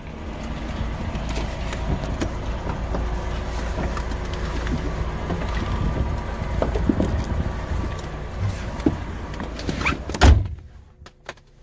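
Steady vehicle rumble and outside noise through an open truck cab door, with small knocks as a plastic food box is lifted off the metal footstep. About ten seconds in, the cab door shuts with a loud thump and the outside noise drops away.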